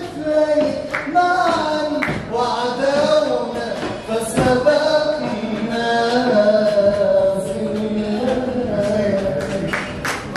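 A man singing solo into a handheld microphone, drawing out long, wavering held notes.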